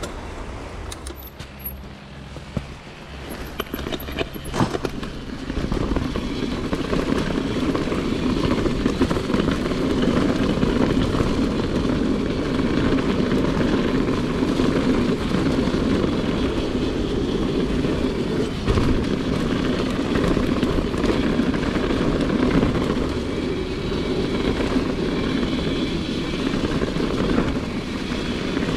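Mountain bike riding over a rough track: steady rumble and rattle of tyres and bike, with wind on the microphone, getting louder about five seconds in.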